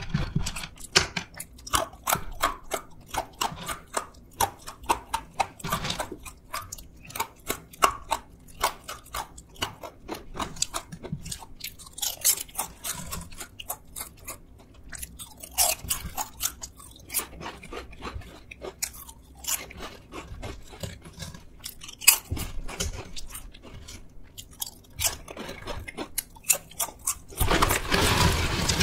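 Close-up crisp crunching and chewing of thin potato chips and sweet potato sticks, many quick crunches. Near the end, a longer, louder rush of bag rustling and clatter as potato chips are poured from the bag onto a wooden tray.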